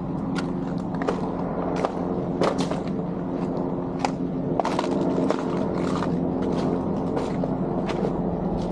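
Footsteps walking over wet paving and burnt debris, sharp irregular steps about two a second, over a steady low engine hum.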